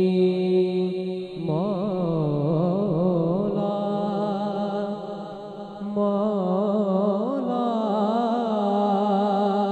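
A young male voice singing a Punjabi naat (kalam) into a microphone. He holds one note for about a second, then moves into long, wavering melismatic runs without clear words, over a steady low drone.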